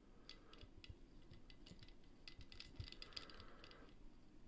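Faint, irregular small clicks and light scraping of home-made pick and tensioner tools working the levers inside a lever padlock.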